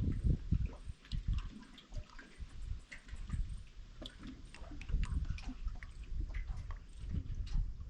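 Water lapping and sloshing irregularly, small splashes and drips over a low, uneven rumble.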